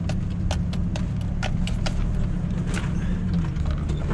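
3/4-ton Chevy pickup's engine pulling steadily in second gear in four-wheel-drive low on a steep dirt road, heard from inside the cab. Irregular clicks and rattles from the rough ride sound over the low engine drone.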